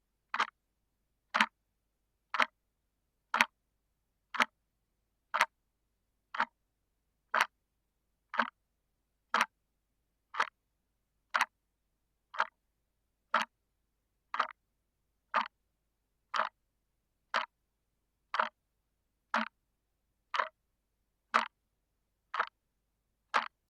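Quartz clock movement ticking once a second, picked up through a contact microphone: each step of the stepping motor is a sharp, close, dry click with nothing between.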